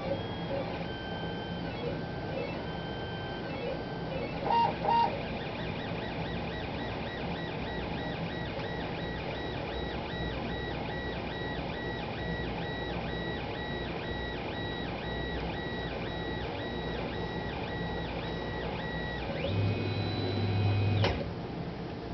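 Nanocellulose 3D printer running a test print: its motors whine in steady tones that switch on and off and change pitch as the axes move, with two short loud tones about four and a half seconds in. From about six seconds on the motors start and stop in a fast, even rhythm. Near the end a louder low hum runs for about a second and a half and ends with a click.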